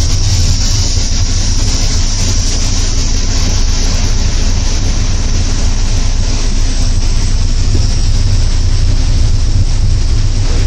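Steady running noise in the cab of a PKP EP07 electric locomotive moving along the line: a constant low rumble with an even hiss over it.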